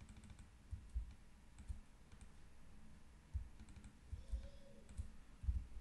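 Faint, irregular clicking of a computer mouse and keyboard, with a few dull low knocks among the clicks.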